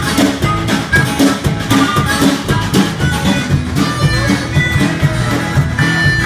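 Acoustic guitar played as an instrumental, strummed in a steady rhythm.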